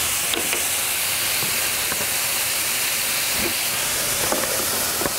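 Cut-up Italian sausage sizzling steadily in a frying pan, an even high hiss, with a few faint clicks of bread pieces being set on a metal baking pan.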